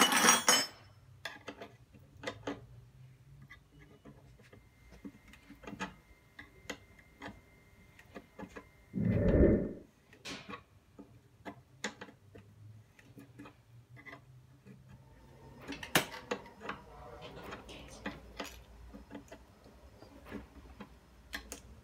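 Light metallic clinks and knocks from air fittings and a coiled hose being handled, over a faint steady low hum. There is a sharp noisy burst at the very start and a single heavy low thud about nine seconds in.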